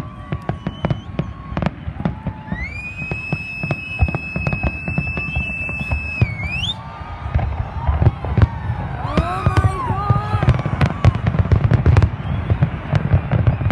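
Fireworks display going off: a dense run of bangs and crackles from shells bursting overhead. A long high whistle rises and holds for about four seconds in the first half.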